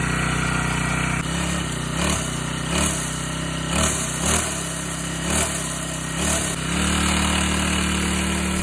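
Pocket bike's small engine idling, with about seven short throttle blips, then holding a slightly higher steady idle near the end.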